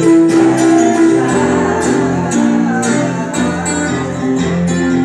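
Music with a steady beat and sustained melody notes.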